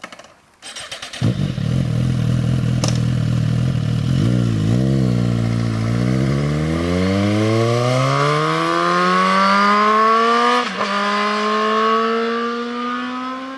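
Suzuki GSX-R sport motorcycle's inline-four engine running, with a short rev about four seconds in. It then pulls away with the pitch climbing steadily, drops briefly at an upshift about eleven seconds in, and climbs again as it fades.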